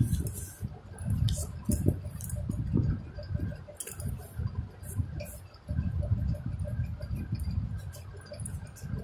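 A sheet of A4 paper being folded and creased by hand: uneven rustling and crinkling with scattered crackles, and dull rubbing as the folds are pressed flat against the table.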